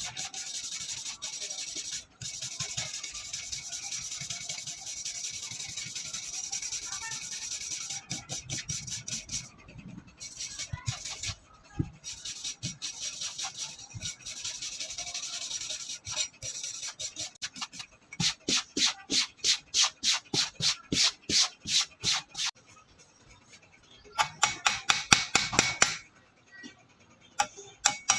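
A hand file scraping back and forth across the rusty steel blade of an old meat cleaver, taking off rust. It rasps in rapid, continuous strokes at first, then after short pauses in separate strokes about two or three a second.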